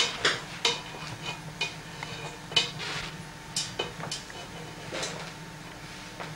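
Sulphur-crested cockatoo working its beak in a stainless steel pot on the stove, knocking the pot and a utensil in it: irregular metallic clinks and scrapes, one or two a second.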